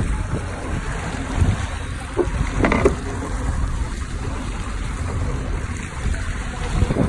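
Honda 90 hp four-stroke outboard motor running with the boat under way, mixed with wind buffeting the microphone and the rush of the wake.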